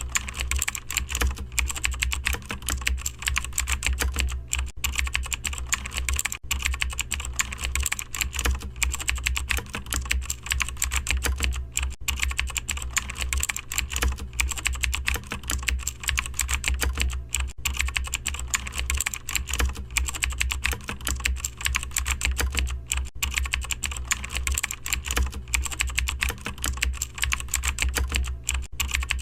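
Rapid, continuous, irregular clicking and tapping, with a steady low hum underneath.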